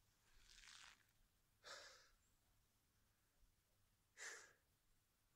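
Three quiet, breathy exhalations a second or two apart, a man catching his breath, worn out from bow-drilling.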